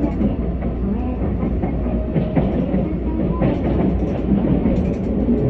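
Keisei AE-type electric train running at speed, heard from inside the passenger car: a steady low rumble with a few faint knocks from the wheels over the track.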